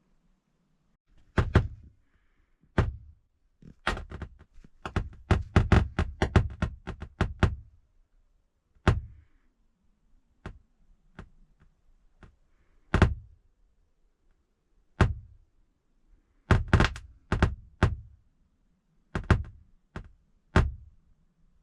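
Van house stereo speakers popping and thumping with the radio off: sharp, irregular static pops, a quick run of them about four seconds in, then single pops every second or two. The cause is unknown; the owner suspects electricity in the air from lightning.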